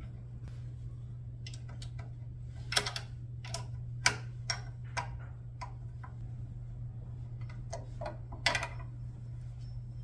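Small metal clicks and taps of a hand tool and throttle linkage parts being worked at a small engine's carburetor, a few sharper ones about three, four and eight and a half seconds in. A steady low hum runs underneath.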